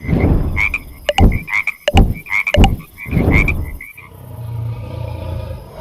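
A rapid series of short croaking animal calls mixed with sharp clicks for about four seconds, giving way to a low, steady rumble.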